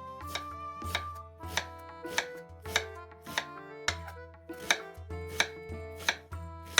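Knife chopping vegetables on a cutting board, one sharp stroke about every half second, over background music.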